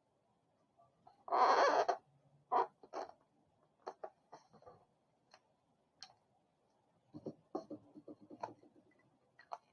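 Latex twisting balloon squeaking and rubbing under the fingers as it is handled and turned over, loudest in one brief burst about a second and a half in. Scattered light taps and clicks from marker pens being put down and picked up.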